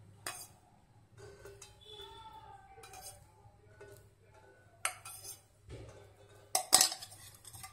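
Sharp clinks and knocks of kitchenware against a stainless steel pot while cooking oil is poured into it, a few separate strikes with the loudest clank near the end.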